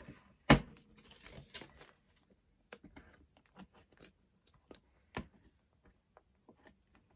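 Photocards and plastic card sleeves being handled on a desk: a sharp tap about half a second in, a second of rustling, then scattered light clicks and taps, with another clear tap a little after five seconds.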